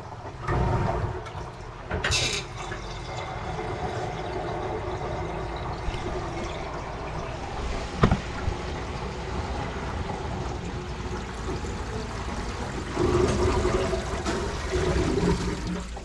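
Water running out of a stainless-steel kitchen sink and down its black ABS drain pipes and P-trap, a steady rushing flush with a louder spell near the end. A single sharp click about halfway through.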